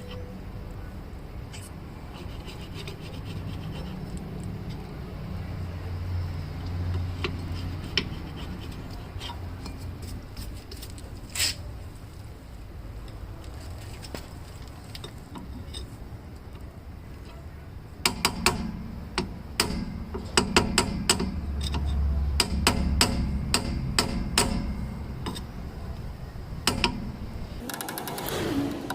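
Flathead screwdriver scraping around and tapping on the metal dust cap of a rear brake-drum hub to work it loose, with a few scattered clicks at first and then a quick run of many sharp taps in the second half.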